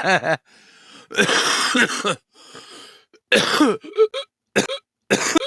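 A person in a coughing fit: a string of about half a dozen harsh, partly voiced coughs, the longest about a second in.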